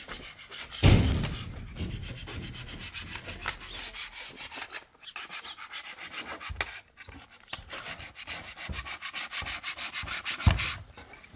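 Sandpaper being rubbed by hand along the edge of a concrete ledge: a steady run of quick rasping back-and-forth strokes. Two dull thumps, one about a second in and one near the end, are the loudest moments.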